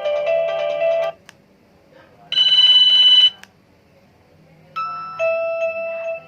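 Nokia mobile phone ringtones and alert tones played one after another. A melodic ringtone ends about a second in, then a loud harsh beep sounds for about a second, and near the end a ringing chime-like tone starts, with a lower note joining it.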